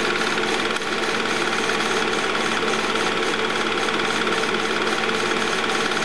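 Movie projector running, its film transport and shutter making a loud, steady, rhythmic mechanical clatter with a constant whirring hum.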